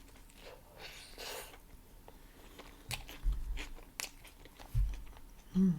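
Close-miked chewing and mouth sounds of someone eating a homemade Impossible burger, with scattered small crunches and clicks. There are two low thumps about three and five seconds in, and a short hum near the end.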